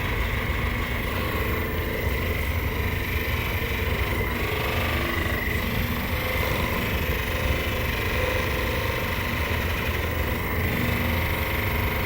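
A small electric motor running steadily, a high whine over a low buzzing vibration.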